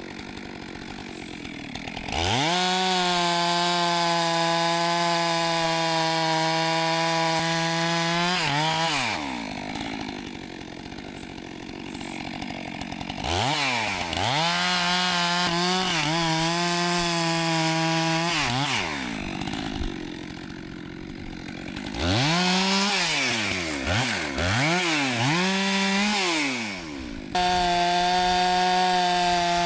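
Two-stroke chainsaw cutting through a log. It revs to full throttle for about six seconds, drops back to idle, then cuts again for about five seconds. After another idle it gives several quick throttle blips, and near the end it runs flat out again.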